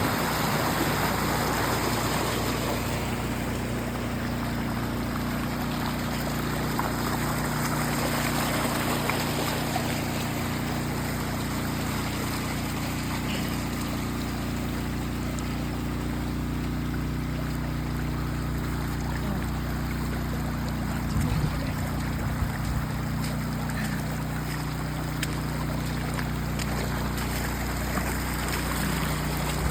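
Floodwater running steadily across a yard: an even, unbroken rush of water with a low rumble underneath.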